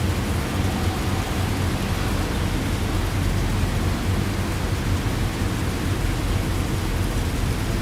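Heavy rain falling steadily: an even hiss with a constant low rumble beneath it.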